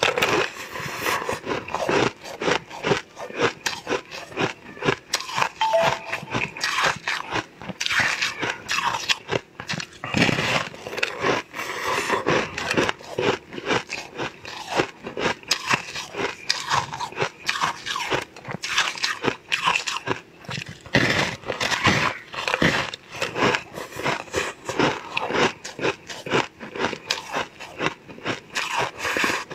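A person biting and chewing a crisp, granular purple star-shaped block: a dense, continuous run of crunches and crackles.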